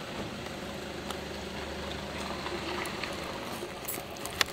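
Steady low rumble and wash of outdoor background noise, with a few sharp clicks near the end.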